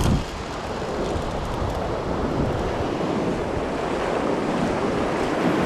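Surf breaking and washing up the beach, with wind buffeting the microphone as a steady low rumble.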